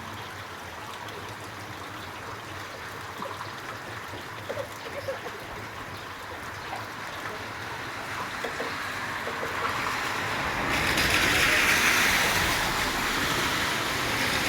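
Steady rain falling as an even hiss, with a few faint short chirps or ticks. About ten seconds in the rain suddenly becomes louder and brighter.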